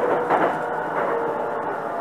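Platform ambience around a Hankyu Kobe Line train standing at a station with its doors open: a steady mix of station and train noise with a few held tones that shift in pitch every half second or so.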